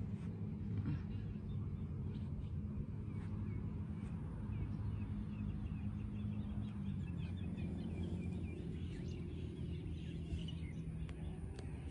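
Birds chirping in quick, short repeated calls from about three seconds in, over a steady low hum.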